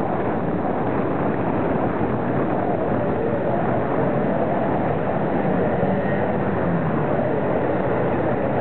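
Steady rushing noise of a bicycle ride on a paved path: wind across the camera's microphone over the rolling noise of the bike.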